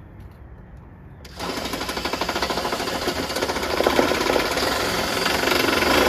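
DeWalt Atomic cordless impact driver hammering a bolt tight, starting about a second in and running for about five seconds with a rapid, even rattle.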